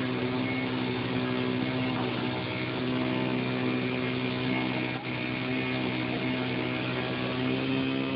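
ParkZone Ultra Micro T-28's small electric motor and propeller droning at a steady pitch as the micro RC plane flies.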